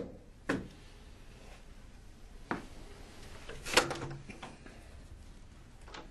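A few single knocks on a hard floor, then the loudest sound, a sharp clack with a short rattle just before four seconds in, as a wooden door's handle and latch are worked and the door is pulled open, followed by a few small clicks.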